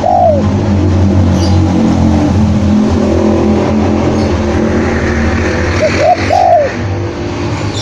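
Spotted dove cooing: two short arched coo phrases, one at the start and one about six seconds in, over a loud, steady, low engine-like hum.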